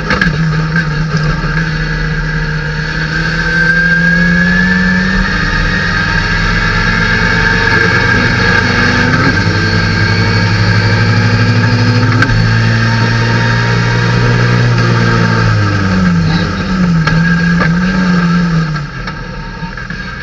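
Datsun 510 race car's four-cylinder engine heard from inside the cockpit, revving hard at full throttle and upshifting down a straight. Near the end the revs fall under braking with several quick throttle blips on the downshifts.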